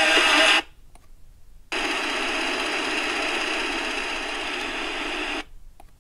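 Kaito Voyager Pro KA600L portable radio's speaker tuned down the FM band. The station's audio cuts off about half a second in, and after a second of muting comes steady FM static hiss between stations, which mutes again near the end.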